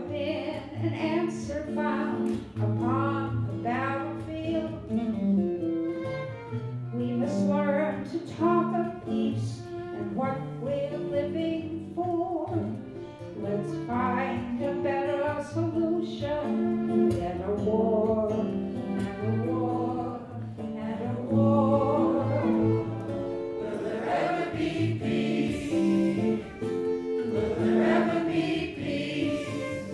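Live acoustic folk song: a strummed acoustic guitar and a violin accompanying several voices singing together.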